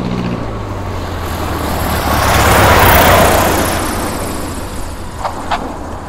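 Propeller plane engine sound effect: a steady low hum under a rushing noise that swells to a peak about halfway and then fades, as of the plane passing by. Two short high chirps come near the end.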